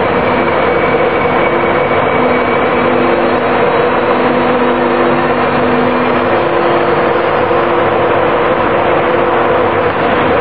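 East Coast InterCity train moving slowly along the platform, a loud steady rumble of the coaches with faint steady humming tones over it.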